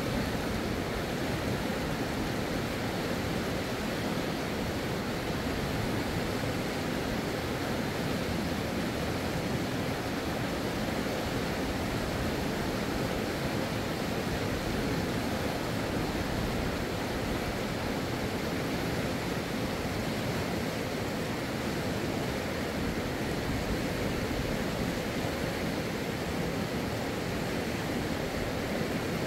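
Steady, unbroken rush of flowing river water.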